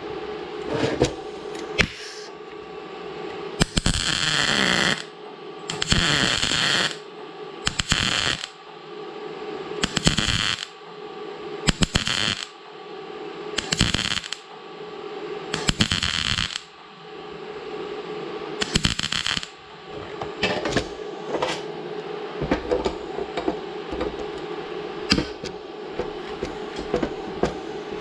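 MIG welding arc crackling in short bursts of about a second each, roughly every two seconds, as weld is built up on a broken bolt stub. A steady hum runs underneath. In the last several seconds the bursts stop and only scattered clicks and knocks remain.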